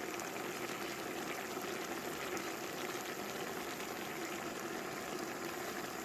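Food cooking in a pot on the stove, giving a steady bubbling and sizzling with fine crackle throughout.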